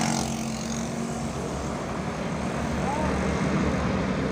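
Tour bus engine running close by, a steady low hum over a rumble that eases off about a second in.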